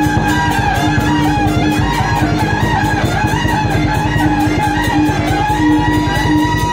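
Live temple-procession band music: a wavering melody line over a fast, even beat of drum and percussion, with a steady held tone underneath.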